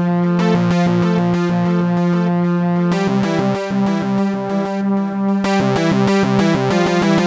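Electronic music: sustained synthesizer chords chopped into a fast, even pulse, with the chord and bass note shifting up about three seconds in.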